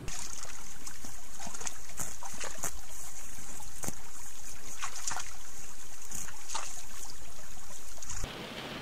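A trail camera's own microphone recording beside a shallow creek: a steady loud hiss of water and wind noise, with a few sharp clicks or splashes scattered through it. It cuts off suddenly about eight seconds in, where the camera clip ends.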